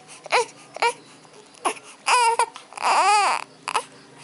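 Young baby hiccuping with short, sharp squeaks, then crying twice about two seconds in, the second cry longer with its pitch rising and falling.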